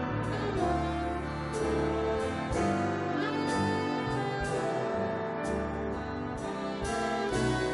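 Live jazz ensemble playing, with long held chords.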